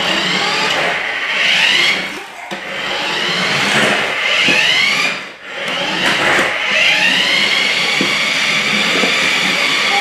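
Toy remote-control Nissan GT-R's small electric motor and gears whining as it drives, the pitch rising and falling as it speeds up and slows. It dips twice, then holds steady over the last few seconds.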